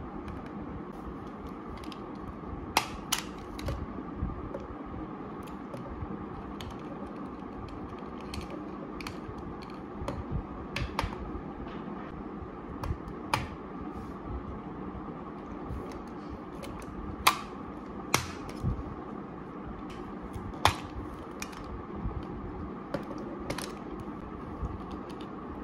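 Small hinged metal mint tins and their cardboard sleeves handled by hand: irregular clicks and taps as the tins are slid out, opened and the mints picked at, over a steady low background hum.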